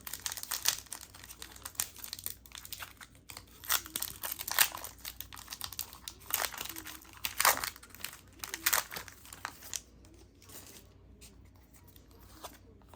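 Foil booster-pack wrapper crinkling and tearing as a Pokémon card pack is opened by hand. The crackling is dense for about ten seconds, then dies down to faint handling.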